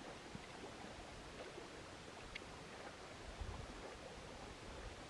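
Faint steady wash of lake water around a small fishing boat, with a single small click about halfway through.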